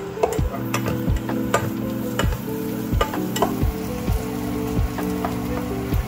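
Sliced red onions frying and sizzling in a stainless steel saucepan while a spatula stirs them, with scrapes and taps against the pan. Background music with a steady beat plays underneath.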